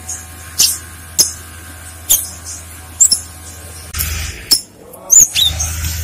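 Cinereous tit (gelatik batu) giving short, sharp, high-pitched call notes, about six spread over the few seconds, some falling in pitch, over a steady low hum.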